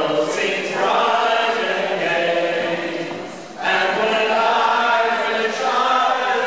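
A small mixed group of men and women singing a song together in unison, with a short break between lines about three and a half seconds in.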